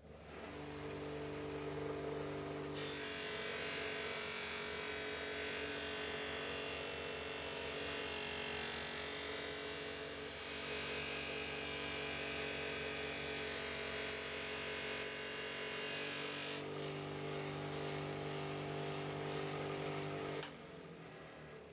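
Small electric motor of a power tool running steadily, with a harsh grinding hiss laid over it from about 3 s to 16 s as the steel or handle is worked against it. The motor then runs on its own until it winds down near the end.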